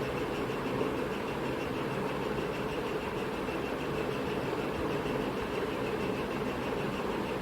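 Steady mechanical hum with a hiss, even throughout, with a faint high whine.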